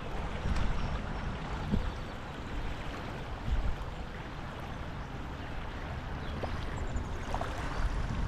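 Fast-flowing creek swollen with high water, rushing steadily, with occasional low bumps.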